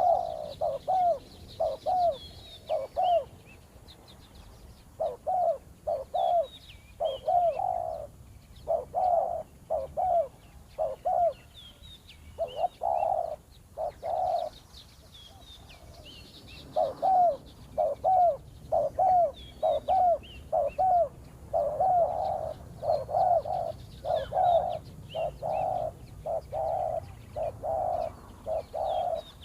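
Spotted doves cooing, repeated phrases of short, rounded coo notes with brief gaps between phrases. Faint high chirps of small birds are heard behind them.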